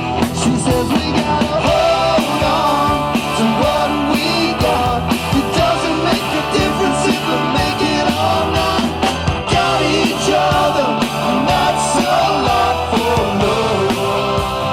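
Rock band music playing loudly, with a steady beat.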